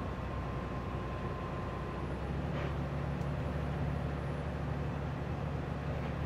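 City bus engine running while the bus drives, heard from inside the passenger cabin. About two seconds in, the engine note gets stronger and a little louder.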